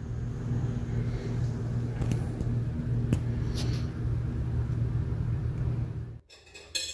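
Steady low motor hum, with a few light clicks and knocks over it; it cuts off suddenly near the end.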